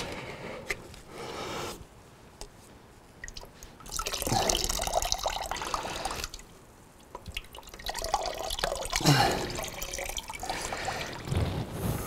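Old motorcycle coolant pouring from a pulled water-pump hose into a plastic bucket, splashing and trickling in uneven spells that swell and ease off. It ends as a thin trickle.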